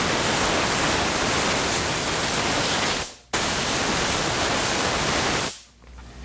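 Compressed air hissing hard from a spray nozzle in two long blasts with a short break between, cutting off sharply near the end.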